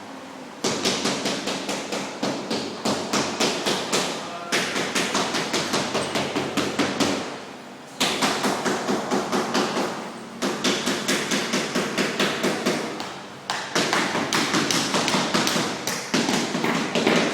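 Recorded flutter of a flock of birds' wings taking off, played by an interactive wall, in about six bursts of rapid fluttering taps that each start suddenly and die away over a couple of seconds.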